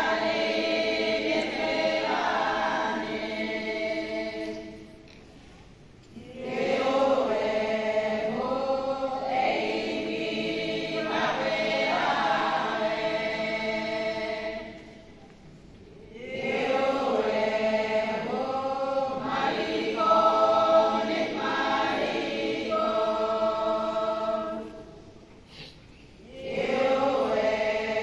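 Women's church choir singing a praise song, in long phrases with short breaks between them about every ten seconds.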